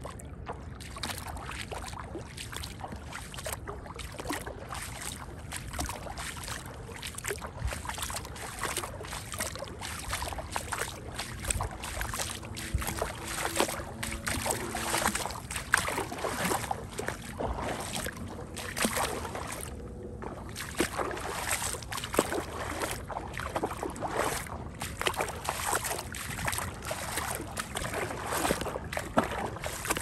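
Footsteps splashing through shallow river water: a steady run of splashy steps, about two a second, over a running-water background.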